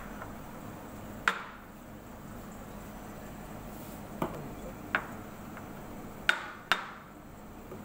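Five sharp knocks at uneven intervals, the last two close together, as a ceramic espresso cup and a steel milk pitcher are handled on a café counter, over a steady background hum.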